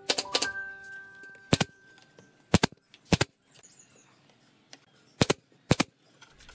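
Pneumatic nail gun firing nails into pine boards, each shot a sharp crack. There is a quick run of three shots at the start, then single shots or pairs every half second to a second and a half.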